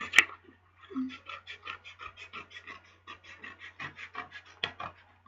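Scissors cutting through cardstock along a scored line: a quick, even run of short rasping snips, with a sharp click just after the start and another near the end.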